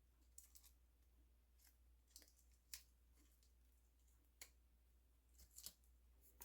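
Faint, scattered short clicks and light scratches from hands handling a freshly painted 3D-printed model head and its masking tape, with a low hum underneath.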